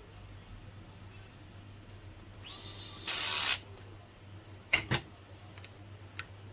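A short rushing hiss that builds and then sounds loudly for about half a second, followed a second later by two sharp clicks in quick succession.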